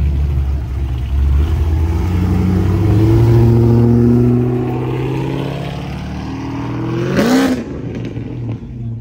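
Chevrolet Camaro engine running as the car drives slowly past, loudest as it goes by, then a short, sharp rev about seven seconds in that rises in pitch and cuts off suddenly.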